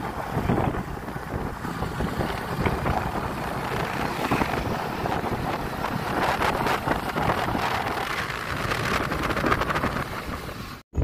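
Wind buffeting the microphone on a moving motorcycle, over the motorcycle's running and road noise. The sound drops out for an instant near the end.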